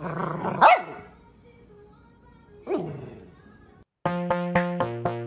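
A Bernese mountain dog puppy barks twice, the first bark loud and the second, about two seconds later, falling in pitch. Near the end electronic music with a steady beat starts.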